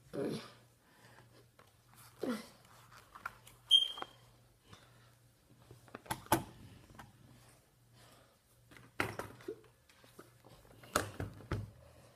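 Scattered handling noises: soft knocks, bumps and rustling as objects are moved about close to the microphone. One short high-pitched squeak about four seconds in is the loudest sound.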